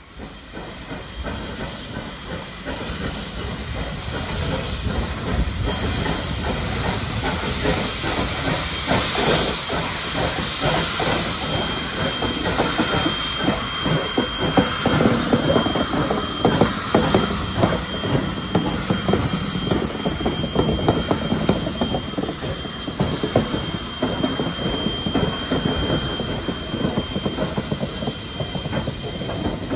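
NSWGR 59 class steam locomotive 5917 passing through, its escaping steam hissing over the rumble and clatter of its wheels and the train on the rails. It grows louder over the first few seconds as it comes in. A thin, steady, high whine sounds through the middle stretch.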